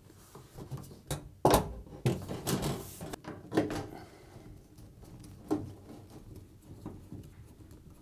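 A washing machine's back panel being handled and refitted: a series of irregular knocks and scrapes, the loudest about a second and a half in, with a longer scrape soon after.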